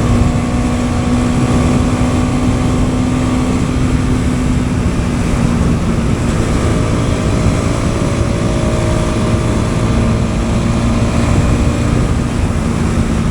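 Bajaj Pulsar NS200's single-cylinder engine running while the motorcycle is ridden, with wind rushing over the microphone. The engine note holds steady, fades about four seconds in, and settles at a new pitch a couple of seconds later.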